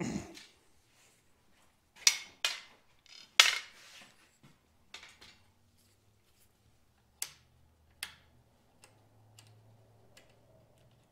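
Handlebar switch housing of a 1973 Suzuki TC125 being handled and fitted onto the chrome handlebar: a string of sharp metal clicks and clanks, the loudest about two to three and a half seconds in, then two more single clicks about seven and eight seconds in, after a thump at the very start.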